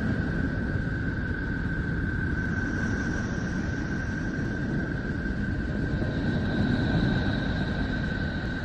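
Space sound presented as the sound of the planet Neptune, the kind of sonified spacecraft recording such videos play. It is a steady low rumbling noise with a constant high tone held over it, and a fainter, higher tone that fades in and out twice.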